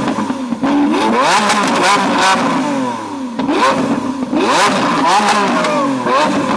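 Lamborghini Aventador's V12 revved hard again and again while stationary, its pitch sweeping up and falling back each time. Sharp pops come from the exhaust between the revs, with flames shooting from the tailpipes.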